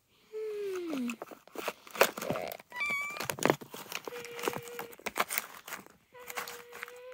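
Plastic clicks and rattles as small scraps of trash are pushed into the hopper of a toy garbage truck. A high whining tone sounds several times: once falling in pitch near the start, then held steady for about a second around the middle and again near the end.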